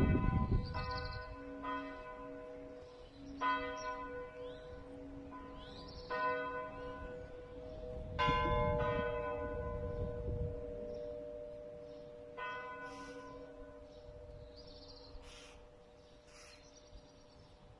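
Church tower bells ringing together in full peal as the ringing dies down. Single strikes come a couple of seconds apart, then further apart, and a deep hum rings on and fades. Birds chirp faintly near the end.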